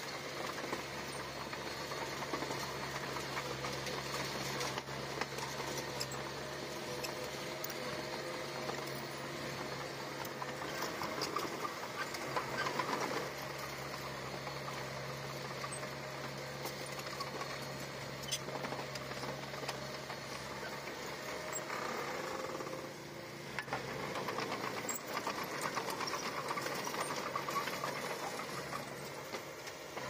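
Small Komatsu bulldozer's diesel engine running steadily under work, with a fast mechanical rattle; the sound dips briefly about three-quarters of the way through.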